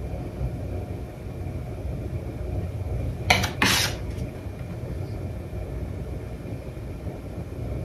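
Palette knife dragging thick acrylic paint across canvas: two short scraping strokes about three and a half seconds in, over a steady low rumble.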